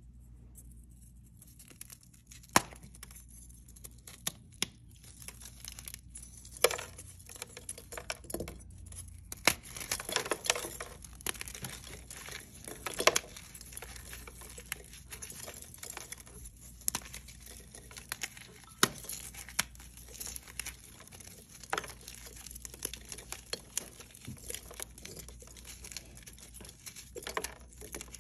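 Hard reformed chalk blocks being crushed and crumbled by hand: irregular sharp cracks and snaps, with gritty crumbling and grinding of chalk between them.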